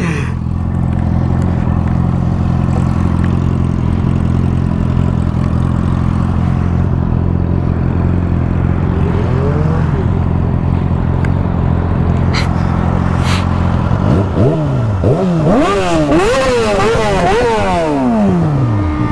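An engine idling steadily, then from about fourteen seconds in it is revved again and again, its pitch sweeping up and down with each rev. Two short clicks come shortly before the revving starts.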